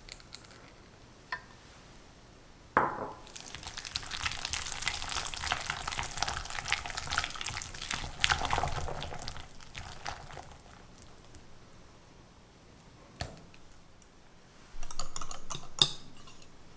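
A wire whisk beating cream cheese and gelatin in a glass bowl. A knock comes about three seconds in, then about seven seconds of fast whisking with the wires ticking and scraping against the glass. Near the end comes a short burst of whisking heavy cream in a glass jug, with a sharp clink.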